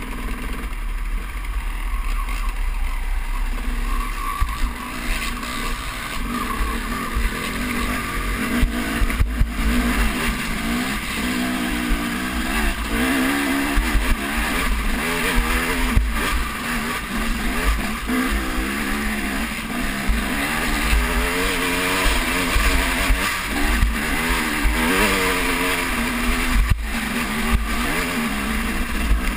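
A 250 cc enduro dirt bike's engine revving up and down under load while climbing a rocky trail, its pitch rising and falling constantly, with wind buffeting the helmet-mounted microphone.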